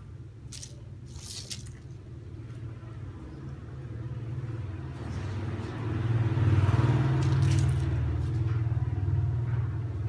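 Sharp plastic clicks and rattles as a Panda 820 W hammer drill is handled and its controls are worked: two clicks close together near the start and another about seven seconds in, over a low rumble that grows louder about six seconds in.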